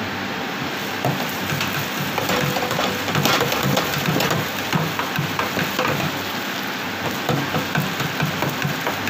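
Tofu pieces deep-frying in hot oil in a deep fryer's wire basket: a dense, steady sizzle with many small crackles.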